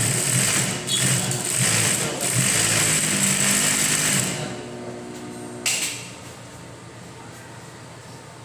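Juki 5550 industrial single-needle lockstitch sewing machine running fast while test-sewing after repair, easing off briefly twice, then stopping about four seconds in. A sharp click follows about a second later, then only a faint steady sound.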